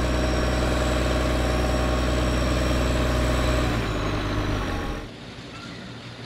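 Tractor's diesel engine running steadily close by, a deep even rumble with a hum over it. It fades slightly and then cuts off about five seconds in, leaving faint outdoor noise.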